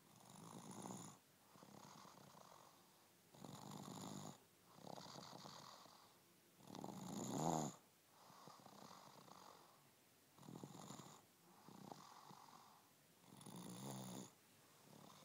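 An 18-month-old toddler snoring heavily in sleep, sounding like an adult. There is a snore on each breath in, five times about three seconds apart, each followed by a softer breath out. The middle snore is the loudest.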